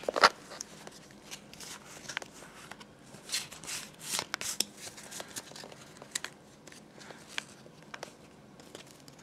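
Pokémon trading card booster pack being handled: the foil wrapper crinkling and the cards rustling and clicking in short scattered bursts, with one sharp crackle just at the start.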